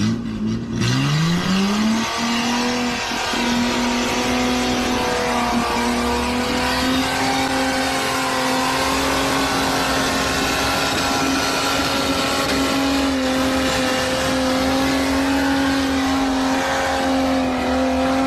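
Heavy dump truck engine revving up over the first two seconds, then held at high, steady revs while its rear dual wheels spin on slick mud.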